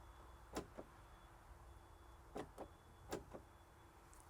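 Three soft double clicks, the two clicks in each pair a fifth of a second apart, spread over a few seconds.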